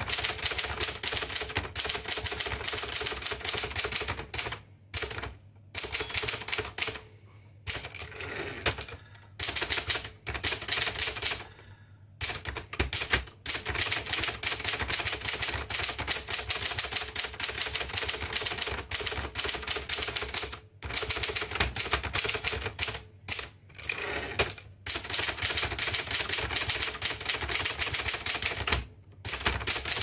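1958 Adler Special manual typewriter being typed on: a fast, steady run of key strikes, the typebars hitting the paper on the platen, broken by several short pauses.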